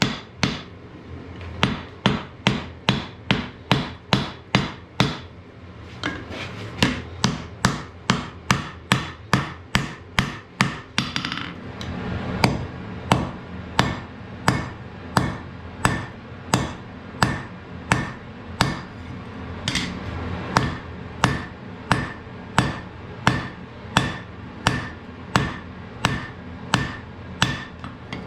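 Blacksmith's hammer striking an iron axe head on an anvil in a steady rhythm of about two blows a second, each with a short metallic ring. There are brief pauses about five and eleven seconds in.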